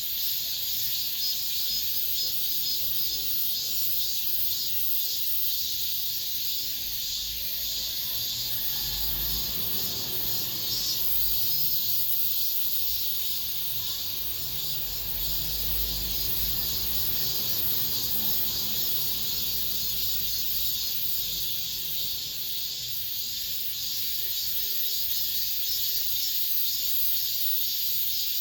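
Chorus of cicadas buzzing steadily. A low rumble rises underneath from about a third of the way in and fades again a little past the middle.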